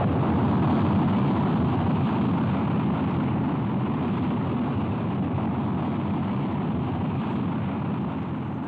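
A loud, steady roaring rush of noise from a model rocket launch, holding through the climb, then fading slowly and cutting off abruptly just after.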